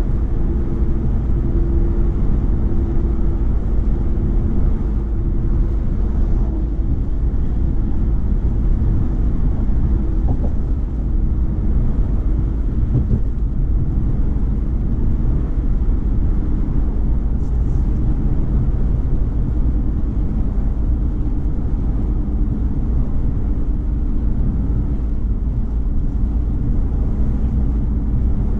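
Car cruising at highway speed: a steady low rumble of engine and tyre road noise, with a faint steady hum.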